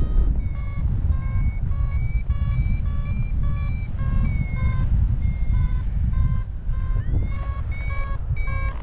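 Paragliding variometer beeping about twice a second in a steady chain of short, high beeps, the lift tone that signals the glider is climbing, over loud wind rushing on the microphone.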